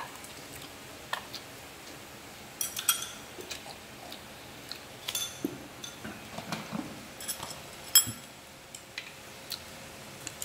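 Chopsticks and spoons clicking and clinking against bowls and the tabletop grill pan during a meal: scattered light taps, with small clusters about 3 and 5 seconds in and a sharper clink about 8 seconds in, over a faint steady hiss.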